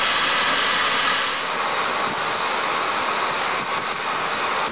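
Homebuilt backyard jet engine made from a Saab turbocharger and burning LPG, running with a steady rushing hiss. About a second and a half in, the level drops a little and the highest part of the hiss fades.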